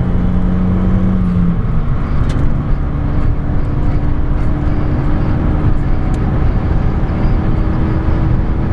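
Renault Megane 225's turbocharged four-cylinder engine with an aftermarket exhaust, heard from inside the cabin, pulling at speed on track; its note steps up in pitch about two seconds in and then holds steady, over constant road and tyre rumble.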